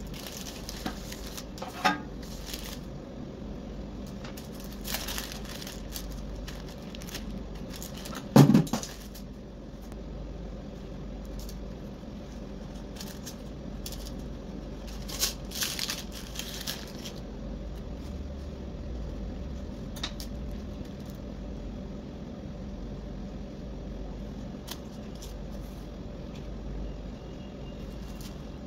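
Parchment baking paper crinkling and rustling as a slab of baked Turkish bread is handled and lifted from a metal baking tray, with a knife cutting through the bread, in short scattered bursts. One louder thump comes about eight seconds in. A steady low hum runs underneath.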